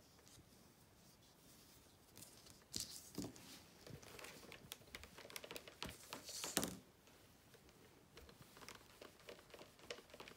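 Faint rustling and crinkling as small strips of quilt cotton are handled and pressed, with a few short clicks and soft knocks. The loudest is about six and a half seconds in.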